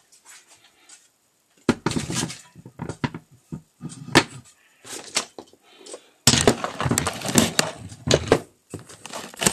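Irregular clattering and knocking of hard objects being handled close to the microphone, heaviest in a dense run about two thirds of the way through.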